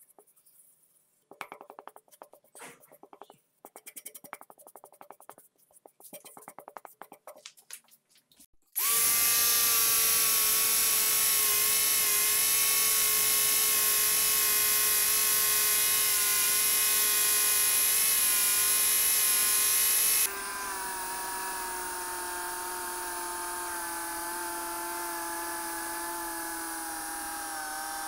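A hand-held felt pad loaded with polishing compound rubs in short, faint strokes along a steel knife blade. About a third of the way in, an angle grinder with a felt buffing wheel starts buffing the blade with a loud, steady high whine. About two-thirds of the way through, the whine drops suddenly in loudness and runs a little lower in pitch.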